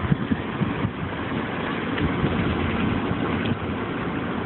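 Car running at low speed, heard from inside the cabin as it turns around: steady engine and road hum, with a few light knocks in the first half second.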